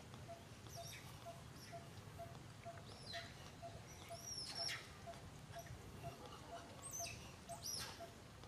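Newborn baby macaque giving high, thin squealing cries, each sweeping up and falling away, several in a cluster about three to five seconds in and twice more near the end. A faint steady ticking, about two to three a second, runs underneath.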